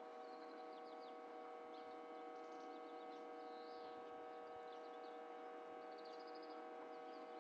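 Small birds chirping in short, scattered calls over a faint, steady electrical hum of several tones.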